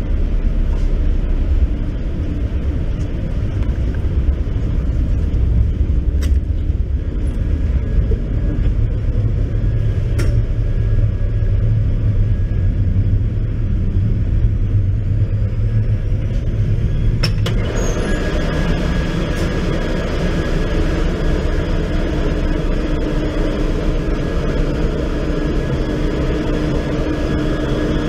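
Cargo ship engine-room machinery running: a loud, steady low rumble with hum tones. A couple of clicks come about two-thirds of the way in, and the noise then becomes brighter and fuller, with a steady tone running through it.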